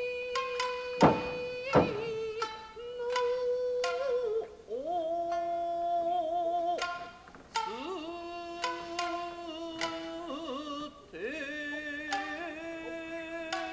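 Nagauta music: a shamisen plucking under long, wavering sung lines. Two loud sharp knocks come about one and two seconds in.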